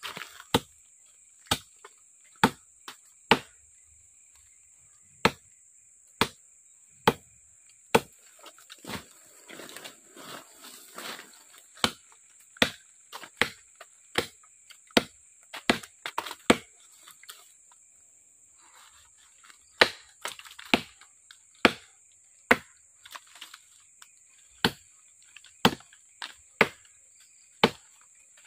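A short, heavy parang (machete) chopping into the trunk of a small weed tree: sharp strikes into the wood, roughly one a second and irregular, some coming in quick pairs.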